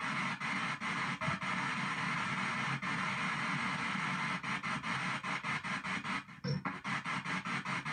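P-SB7 ghost box radio sweeping down the FM band, its speaker putting out hissing static chopped into short bursts about five times a second as it jumps from station to station. It briefly drops out about six seconds in.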